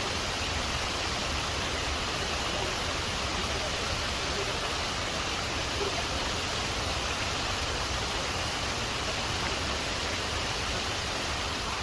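Waterfall rushing: a steady, even roar of falling water with no change.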